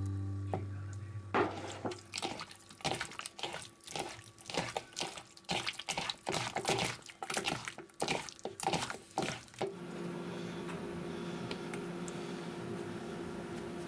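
Hands squeezing and kneading raw skate wing pieces in a wet soy sauce and ginger marinade, giving irregular wet squelches, several a second, for about eight seconds. The squelching stops about ten seconds in, leaving a steady low hum.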